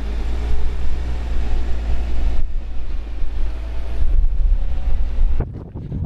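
Lexus GX550's twin-turbo V6 running low and steady as the SUV crawls through dirt ruts towing an off-road trailer. Near the end wind buffets the microphone.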